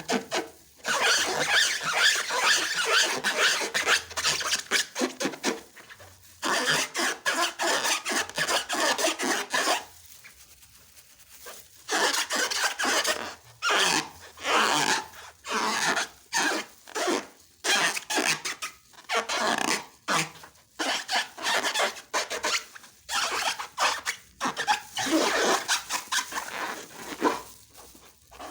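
Slime being stirred and worked by hand, with a wet, crackly rubbing sound in long stretches at first, then a run of short separate squishes, about one or two a second.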